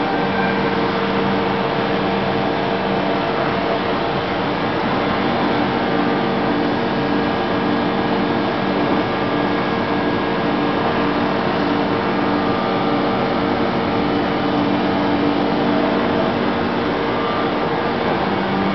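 Busellato Jet 3006 pod-and-rail CNC router's machinery running with a steady whir and a low, even hum.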